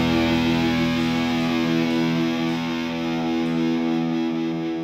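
Outro music: a single distorted electric guitar chord ringing out and slowly fading.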